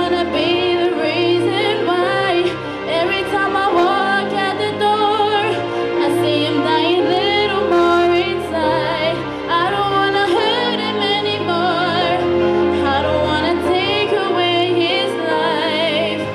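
A woman singing into a handheld microphone over a recorded karaoke backing track, holding notes with vibrato.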